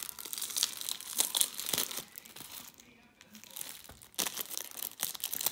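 White wrapping around a rolled diamond painting canvas rustling and crackling as hands peel it open at its sticker seal. It eases off a little past halfway and picks up again about four seconds in.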